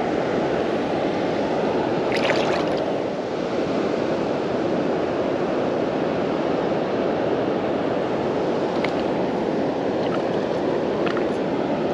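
Steady rushing of water from a large river weir running high after rain. A brief clatter about two seconds in.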